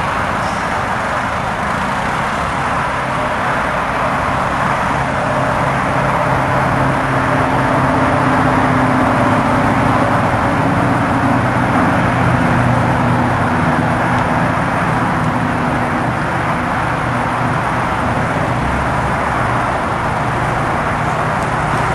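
Linhai CUV 300 UTV engine running steadily under load as the vehicle drives, a continuous drone whose pitch drifts only slightly, over the noise of the ride.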